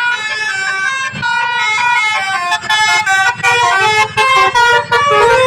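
Indonesian 'telolet' bus horns playing a quick tune of short stepped notes, several horn melodies overlapping, over the low running of bus engines.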